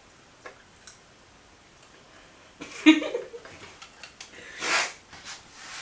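A person sniffing sharply near the end, a short breathy inhale through the nose, with a brief vocal sound about three seconds in and a few faint clicks before it.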